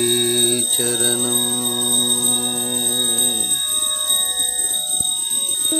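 Instrumental devotional music of long, steady held notes that step from one pitch to the next, playing during a lamp aarti; the held notes stop about three and a half seconds in, leaving a rougher, noisier sound.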